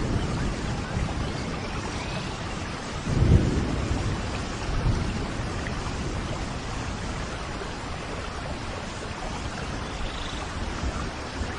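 Steady rain falling, with a low rumble of thunder about three seconds in and a fainter one shortly after.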